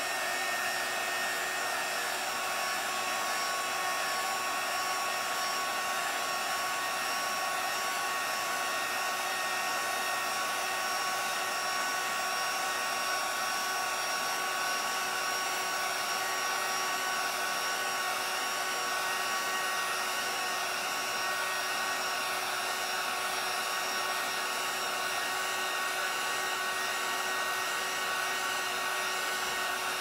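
Handheld craft heat gun blowing steadily, a constant rush of air with a thin, steady whine, drying and pushing wet alcohol ink across a resin-coated tumbler.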